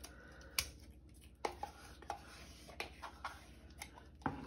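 Several light, irregular taps and knocks as ricotta is scraped and tapped out of a small plastic tub into a square bowl.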